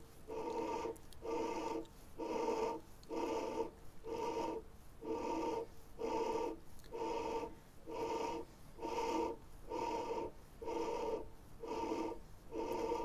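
Lathe spindle and chuck turning slowly while runout is checked with a dial gauge. It gives a rhythmic squeaky rub about three times every two seconds, a short pitched whine with each pulse.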